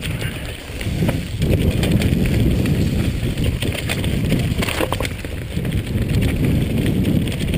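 Jamis Dakar XAM mountain bike descending a dirt singletrack: a steady low rumble of wind on the microphone and tyres on dirt, growing louder about a second in, with frequent clicks and rattles from the bike over bumps.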